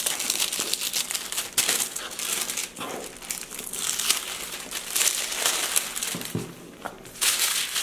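Sheet of white paper being handled, folded and flipped, rustling and crinkling in irregular bursts.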